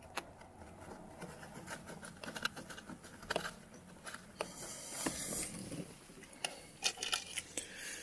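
Small clicks and light scraping as a Torx screw is threaded by hand into the back of a steering wheel, fingers and metal rubbing against the plastic trim, with a longer rustle about halfway through.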